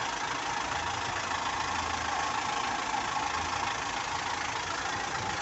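Isuzu Elf light truck's engine idling steadily.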